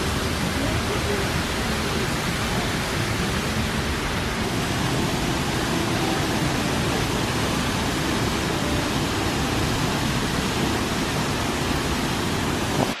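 Water of a large fountain falling and splashing, a steady, even rush that cuts off abruptly at the end.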